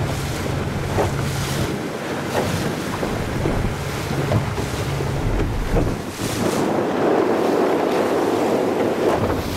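Wind buffeting the microphone and water rushing and splashing against the hull of a small tour boat under way, with the boat's engine humming underneath, clearest in the first couple of seconds.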